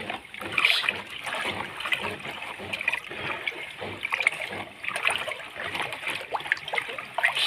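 A hand stirring and swishing coconut water in a plastic bucket to dissolve urea and coarse salt: irregular sloshing and small splashes.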